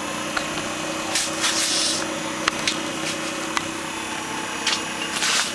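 A steady mechanical hum with hiss, broken by several brief clicks and short rustles.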